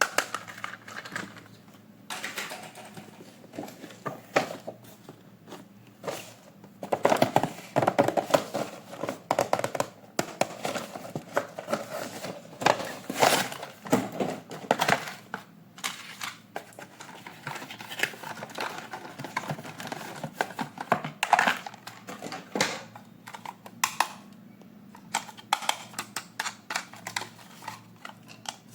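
Toy packaging being opened and handled: plastic and cardboard crinkling and tearing, with many irregular clicks and knocks.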